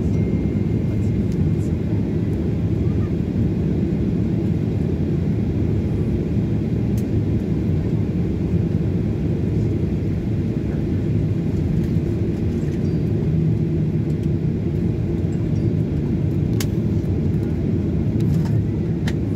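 Jet airliner taxiing, heard from inside the passenger cabin: a steady, low rumble of engines and airframe that holds even throughout.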